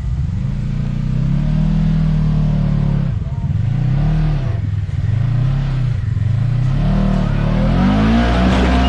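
Side-by-side UTV engine revved hard again and again, its pitch rising and falling about once a second, as the machine tries to crawl up a rock ledge.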